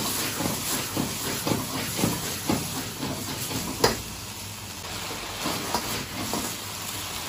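A gas wok burner hisses steadily under a wok of chicken and chestnuts sizzling in freshly thickened sauce. Stirring knocks run through the first few seconds, there is one sharp clack about four seconds in, and the wok is tossed near the end.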